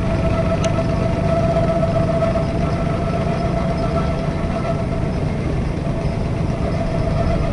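Steady industrial machinery hum with a constant mid-pitched whine, from the covered conveyor gallery of the port pier.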